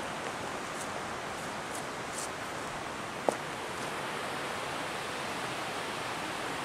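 Steady rushing outdoor background noise with a single sharp click about three seconds in.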